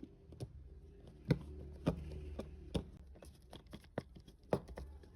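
Scattered light clicks and taps, about six in five seconds, from hands fitting a jumper wire between pin 1 and pin 2 terminals of a relay base, over a faint low hum.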